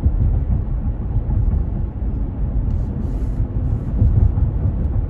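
Road and engine noise inside the cab of a moving pickup truck: a steady low rumble.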